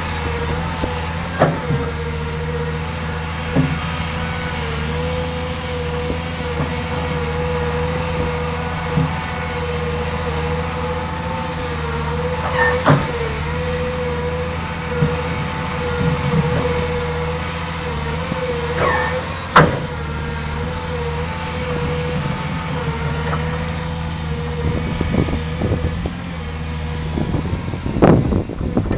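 Caterpillar excavator's diesel engine running steadily, with a wavering whine over it and a few sharp knocks spread through.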